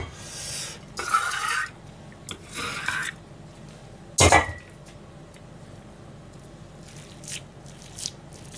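Kitchen utensils handled in a stainless steel sink and bowl: a few short scraping and rubbing noises, then one loud metallic clank with a brief ring about four seconds in as the large kitchen knife is put into the steel bowl. Faint ticks follow as hands press meat paste down in a small metal bowl.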